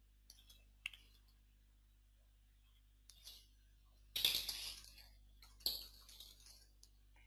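Computer keyboard typing: a few faint scattered keystrokes, then two louder quick flurries of keys, about four seconds in and about six seconds in.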